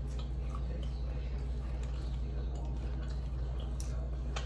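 Steady low hum with scattered small clicks and wet ticks over it, and a sharper click shortly before the end.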